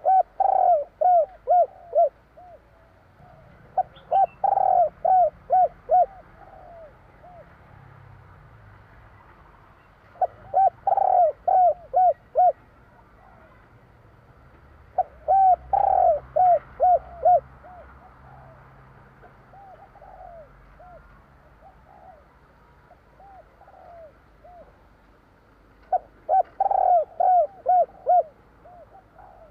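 Spotted dove cooing: repeated phrases, each a quick run of about six to eight short arched notes lasting about two seconds, coming every few seconds.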